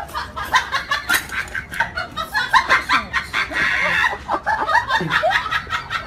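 Tabby cat vocalising with its mouth open in a rapid string of short calls, several a second.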